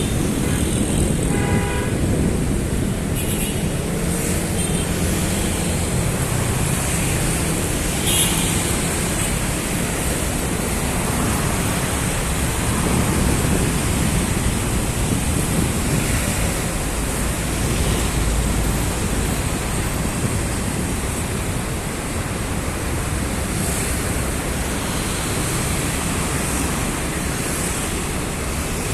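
Steady, continuous noise of heavy city road traffic streaming past, with a brief high-pitched tone about a second in.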